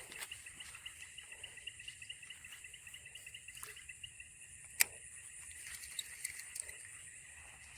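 Insects calling: a steady high-pitched drone under a rapid, pulsing chirp that fades out about halfway through. A single sharp click comes a little before the five-second mark.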